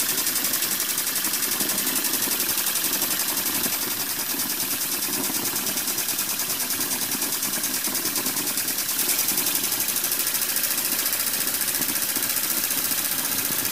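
Homemade steam engine with an epoxy-putty piston running fast and steadily on live steam, its exhaust making a rapid even chuffing over a constant hiss of escaping steam.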